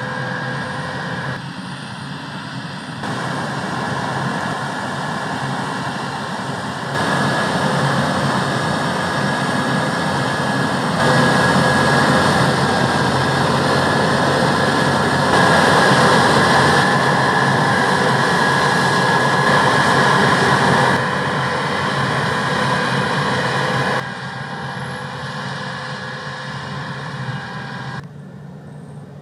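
Harvest machinery, a combine harvester and tractors, running steadily with a faint steady whine over the engine noise. It comes as a series of short shots, and the level jumps at each cut every few seconds.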